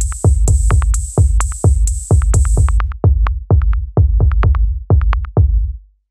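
Electronic background music with a drum-machine beat, about two beats a second. A high hissing layer drops out about three seconds in, and the music dies away shortly before the end.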